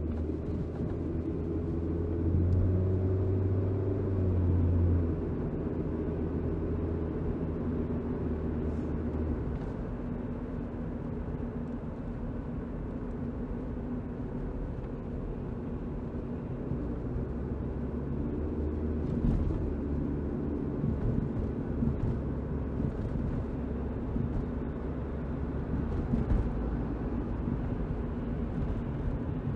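Car driving, its engine note and road noise making a steady low drone that swells for a few seconds near the start.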